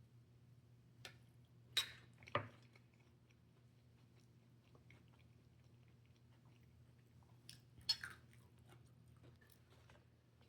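A person chewing salad and chicken wings quietly, close to the microphone, with a few short sharp crunches about two seconds in and again near eight seconds. A faint steady low hum sits underneath.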